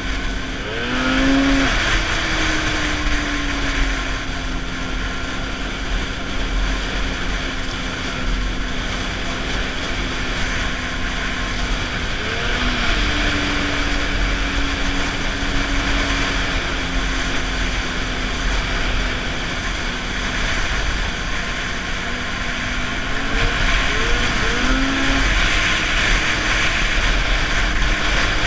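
Snowmobile engine running at speed, its pitch climbing sharply as the throttle opens about a second in, again around twelve seconds and near the end, and sagging slowly in between, over a steady rushing noise.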